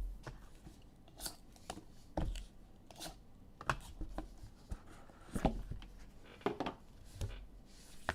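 A sealed box of sports trading cards being opened and its packs and cards handled: irregular short rustles, crinkles and taps of wrapper and cardboard.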